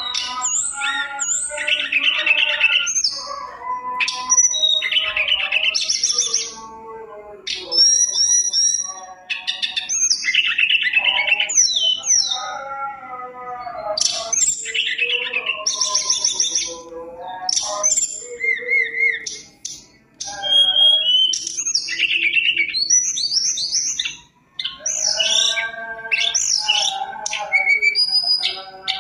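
Male hill blue flycatcher (tledekan gunung) singing a long, varied song of rapid clear whistles, slurred notes and fast trills, phrase after phrase, with short breaks near the middle and later on. The song is packed with fill-in phrases (isian) borrowed from other birds.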